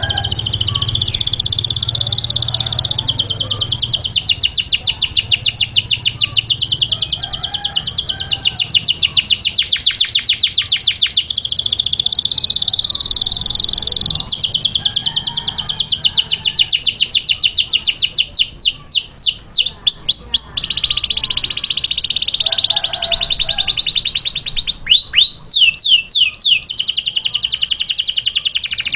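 Domestic canary singing a long, continuous song of rapid rolling trills, high-pitched and fast-repeating, with brief runs of quick falling whistles about two-thirds of the way in and again near the end.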